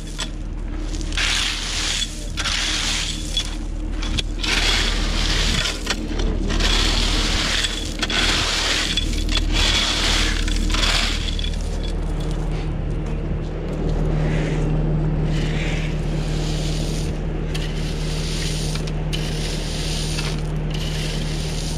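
Repeated scraping of gravel base at irregular strokes, denser in the first half, over a steady engine hum that grows stronger about halfway through.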